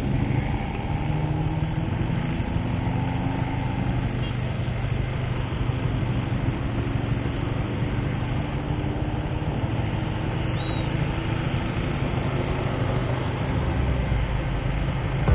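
Motorcycle engine idling steadily at a standstill.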